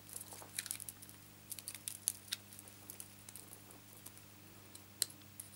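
Small Paper Snips scissors cutting a stamped paper piece: faint, irregular snips and paper rustles, with one sharper click about five seconds in.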